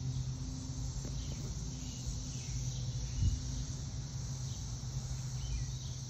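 Steady, unbroken buzzing chorus of periodical cicadas, with a few short faint chirps above it.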